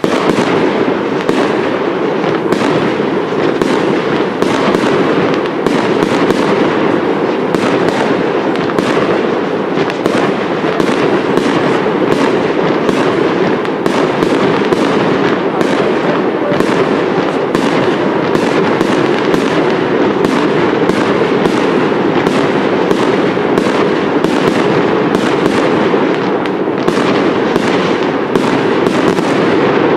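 Aerial fireworks display: a dense, unbroken run of shell bursts and crackle, with sharp bangs about two a second over a steady crackling din.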